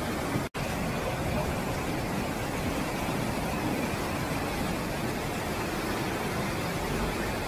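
Fast mountain river rushing through rapids over rocks: a steady, dense rush of water, broken by a brief silence about half a second in.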